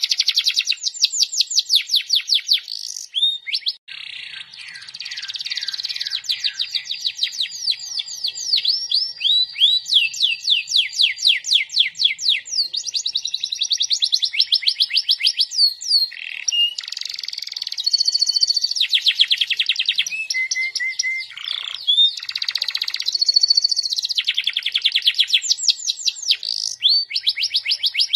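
Domestic canary singing nonstop: a long run of fast trills, each a rapid string of repeated high notes, switching to a new trill every second or two, with only a brief break about four seconds in.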